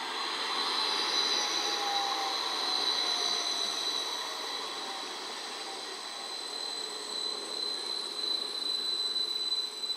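CAF Urbos 3 electric tram passing close by, with a steady high whine over running noise and a lower tone that slides down in pitch during the first half. It is loudest about a second in, then eases off as the tram goes by.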